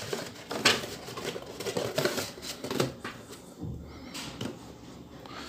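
Hands handling cardboard product boxes: rustling and scraping cardboard with a few light knocks, the clearest just under a second in, at about two seconds and near three seconds.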